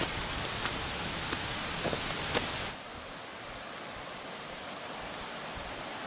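Steady rushing of a rocky mountain stream, with a few faint ticks in the first half; a little under halfway through it drops to a quieter, even rush.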